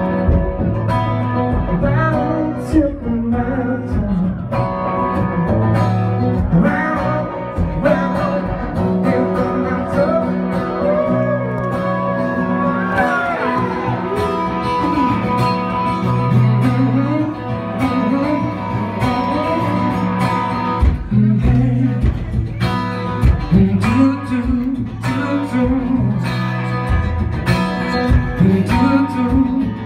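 Live band playing a blues-rock song: guitar over steady bass notes and a regular beat, with singing.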